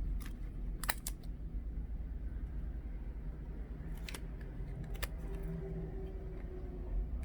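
A few sharp, separate clicks and taps of small parts and tools being handled during a tablet repair: two close together about a second in and two more later, over a low steady hum.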